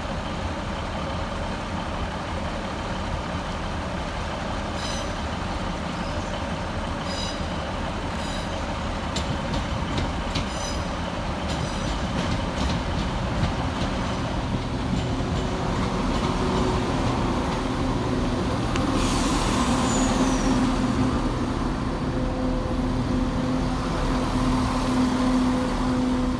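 East Midlands Railway diesel multiple unit running into the platform, its engine rumbling with a steady tone. Scattered wheel clicks come early. A burst of air hiss comes about nineteen seconds in, and the engine note grows louder toward the end.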